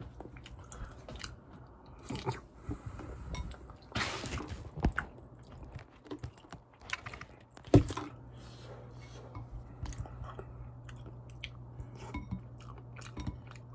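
A person chewing and eating instant curry rice, with scattered short wet mouth sounds and sharp clicks. A louder burst comes about four seconds in and a sharp click just before eight seconds.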